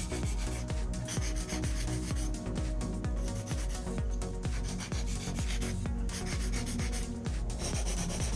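Hand nail file rasping back and forth across an acrylic nail tip in quick repeated strokes, shaping and smoothing the nail.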